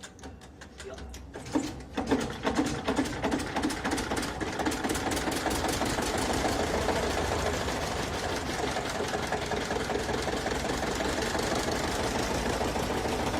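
A rice mill's engine being started with a hand crank: faint, even ticking gives way about one and a half seconds in to loud, irregular knocks as the engine catches. It then settles into a steady, rapid, rhythmic run.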